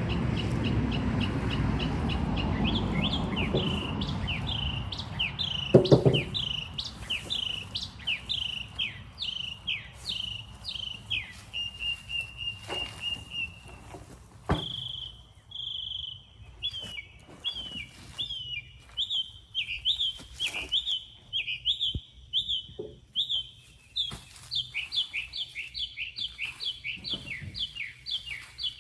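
A songbird calling over and over: a long run of quick, repeated downward-sliding chirps, with a brief steady trill in the middle. A low rumbling noise fills the first few seconds and ends in a thump about six seconds in.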